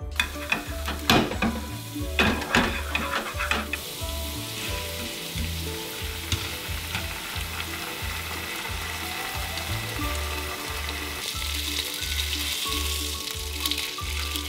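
Cod fillet frying in oil with minced garlic and red chili in a non-stick frying pan over low-to-medium heat: a steady sizzle with several sharp crackles in the first few seconds, growing louder after about eleven seconds. Background music with a steady low beat runs underneath.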